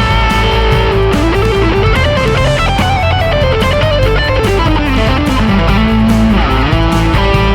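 Background rock music led by electric guitar, with a melodic line stepping up and down over a steady bass and drum beat.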